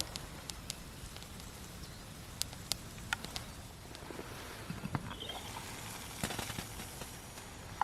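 Campfire crackling, with scattered sharp pops and clicks over a low steady background, while water heats over it.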